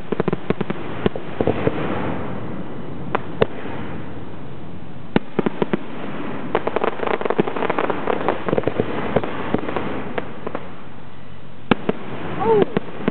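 Aerial fireworks shells bursting: sharp bangs at irregular intervals, with a dense run of crackling reports in the middle.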